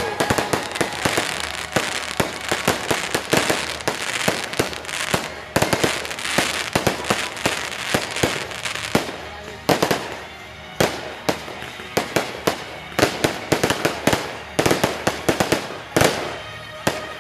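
Fireworks display going off: rapid volleys of bangs and crackling bursts, thinning to single bangs in the middle and picking up again near the end, with music playing underneath.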